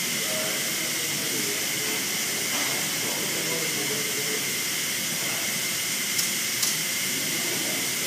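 A steady high-pitched hiss with faint voices beneath it, and two light clicks half a second apart late on.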